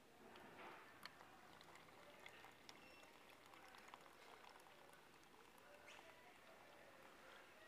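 Water dispenser tap running a thin stream of water into a plastic cup, faint.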